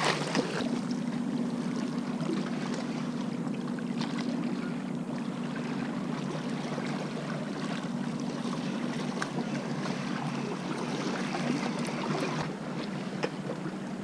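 Wind and sea water washing against a rocky shore, with a steady low hum that runs through most of the stretch and stops near the end, and a few faint clicks.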